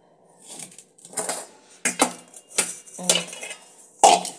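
Metal cake pot clattering and knocking against a steel plate as it is turned upside down and knocked to free a steamed semolina cake: about five or six sharp metallic knocks, the loudest near the end.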